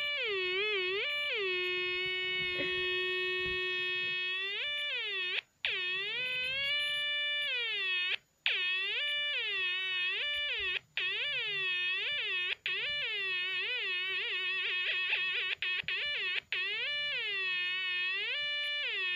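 Snap Circuits electronic trombone: a steady electronic tone whose pitch slides up and back down again and again as the sliding piece is moved back and forth, the ups and downs coming quicker about three quarters of the way in. The tone cuts out briefly about five times.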